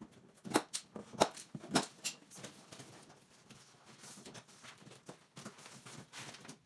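Tape being ripped off a tall cardboard box in several sharp tears during the first two seconds, then cardboard scraping and rustling as the box is pulled open.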